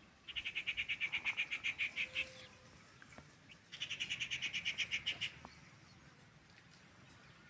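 A bird calling in two rapid pulsing trills of about nine notes a second, the first about two seconds long and the second a little shorter.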